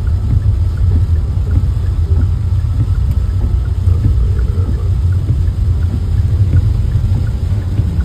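Steady low rumble inside a car driving through heavy rain: road and engine noise mixed with rain hitting the car, with scattered faint ticks.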